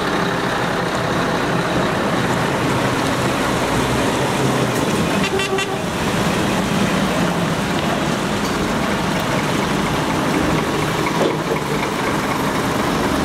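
Heavy trucks, a Scania tipper among them, driving slowly past with their diesel engines running, and a horn tooting.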